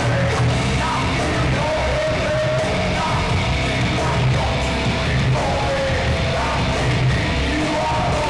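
Loud rock music with a singer over a steady beat.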